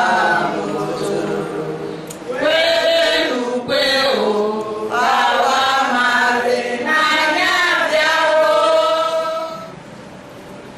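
A group of women singing their club song together, with long held notes. The singing stops near the end.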